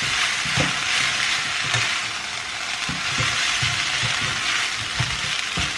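Noodles and vegetables sizzling in a hot wok while being tossed with a metal spatula, with irregular knocks and scrapes of the spatula against the pan over a steady frying hiss.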